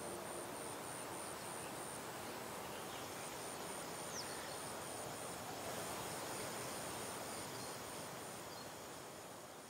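Open-air field ambience: a high insect chirp pulsing about three times a second over a soft even hiss, with a faint bird call once about four seconds in.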